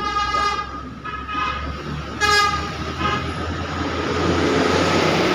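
Nias hill myna giving four short, nasal calls, a longer one at the start and shorter ones after about a second and a half, two seconds and three seconds, the one just after two seconds loudest, over a steady low hum and background noise.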